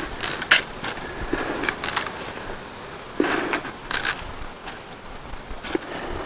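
Irregular rustles, scrapes and light knocks of something being handled, a few brief bursts a second or so apart.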